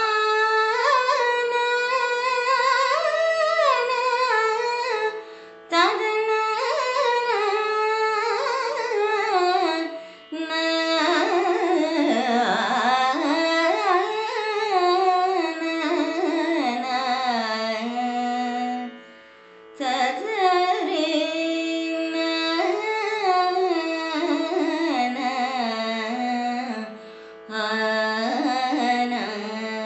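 A woman singing a Carnatic kriti in raga Dharmavati, set to Adi tala, in gliding, ornamented phrases over a steady drone, with brief pauses between phrases.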